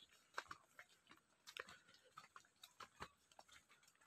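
Faint footsteps of people walking a dirt and stone path: light, irregular clicks and scuffs, a few a second.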